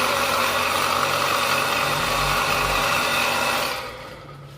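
Electric water pump motor running with a loud, harsh, annoying noise from a worn ball bearing ('bearing sound'). The noise dies away near the end.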